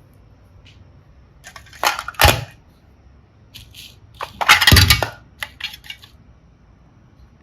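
Small hard pieces clattering and clicking against each other in two short bursts, one about two seconds in and a longer one around four and a half seconds, with a few light ticks after.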